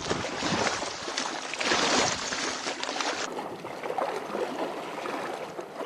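Water splashing and sloshing at the lake's edge, with a louder splashy wash about two seconds in.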